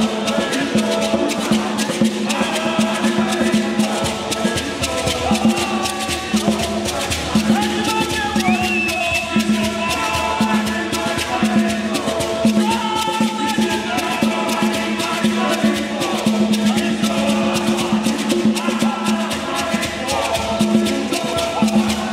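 A male vocal group singing a song in harmony, with hosho gourd shakers rattling a fast, steady beat throughout.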